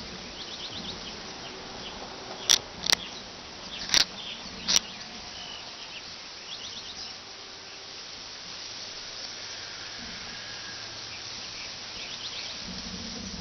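Steady hiss picked up by a small kite-mounted camera, broken by four sharp clicks a couple of seconds in. There are faint runs of quick high chirping ticks near the start and again near the end.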